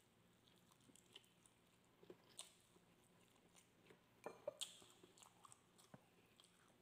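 Faint close-up chewing of skewered barbecue meat and rice, wet mouth clicks and smacks scattered through, a few sharper ones about two and a half and four and a half seconds in.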